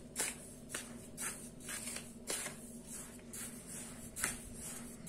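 Green spatula stirring a dry mix of semolina, maida flour and sugar in a red bowl: soft, gritty scraping strokes, about two a second.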